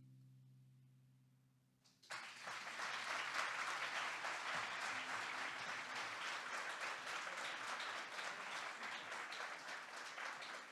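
A lingering instrument note fades away to near silence. Then audience applause breaks out suddenly about two seconds in and continues steadily.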